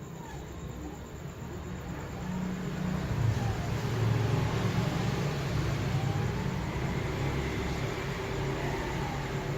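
CNC foam cutter's stepper motors whining as the machine moves, the pitch rising and falling every couple of seconds over a steady low hum that grows louder a few seconds in.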